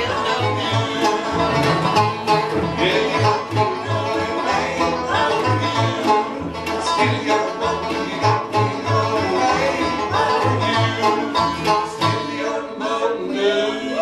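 Live bluegrass band playing a tune, with banjo, fiddle and guitar over an upright bass keeping a steady beat.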